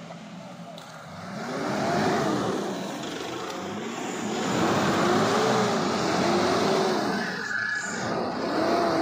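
Toyota four-wheel-drive pickup's engine revving up and down again and again as it pushes through deep mud, over a steady rushing noise. It grows louder about a second in.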